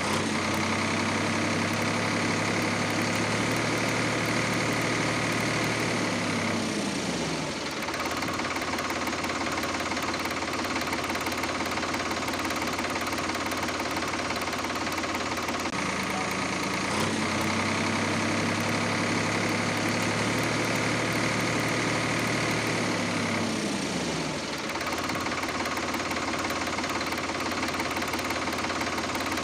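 Engine running steadily, its pitch sliding down twice, about seven seconds in and again about twenty-four seconds in. The same stretch of engine sound repeats, like a looped sound effect.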